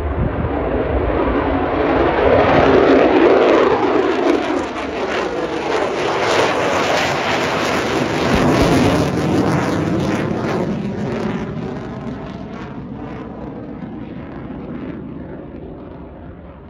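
Lockheed Martin F-35A Lightning II's single Pratt & Whitney F135 jet engine at take-off power as the fighter climbs away: a loud jet roar that swells twice, crackles in the middle, then fades steadily over the last few seconds.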